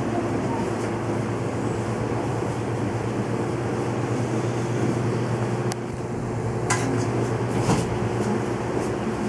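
Steady droning room hum with a constant low tone, like machinery running, broken by three short clicks in the second half.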